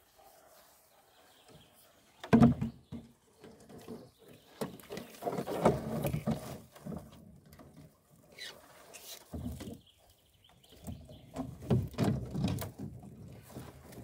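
A wire-mesh fish trap being hauled out of the lake into a rowboat: water splashing and running off the mesh, with knocks and thumps of the trap and hands against the boat's hull, the loudest knock about two seconds in.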